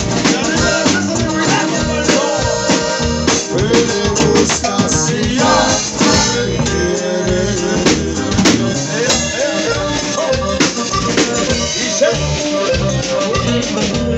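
Live norteño band playing: accordion over electric bass and a drum kit keeping a steady beat.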